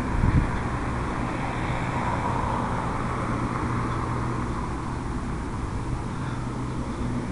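Steady hum of road traffic, with a brief gust of wind on the microphone at the start.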